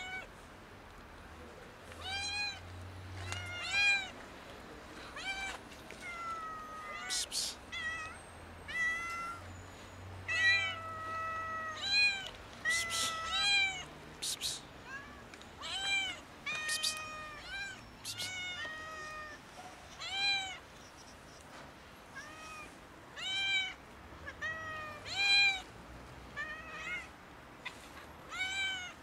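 Stray cats meowing over and over, asking for food, with calls coming every second or two, some short and rising-falling, some longer and held.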